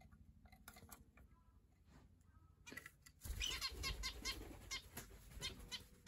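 Small pet birds calling in short, repeated chirps; from about three seconds in the calls come thick and fast over a low rumble.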